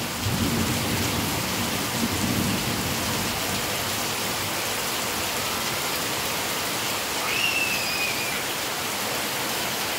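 Heavy rain falling steadily on a paved path and grass, an even, unbroken hiss.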